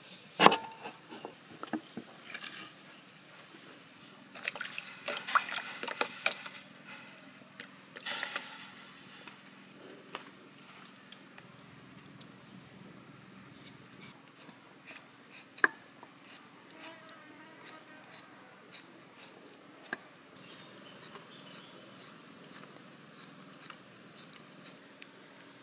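Kitchen knife work on a wooden chopping board: a couple of loud cleaver chops through ginger about half a second in, a stretch of rustling and clattering of ingredients being handled around five to eight seconds in, then light, scattered clicks of a small knife slicing green lime against the board.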